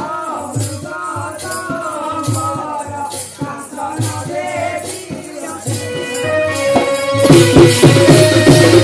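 Live folk dance music: a barrel drum beating under a wavering melody, with jingling, rattle-like percussion. About seven seconds in the music gets louder and the drum strokes come faster over a steady held note.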